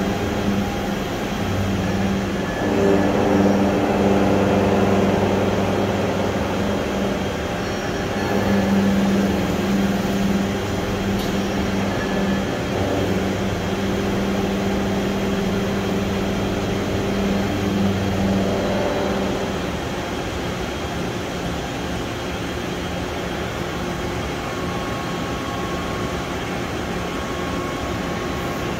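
Toshiba BP-150 R22 CNC horizontal boring mill running under power, with a steady mechanical hum as its table and spindle head move. The hum is louder at first and drops off about 19 seconds in.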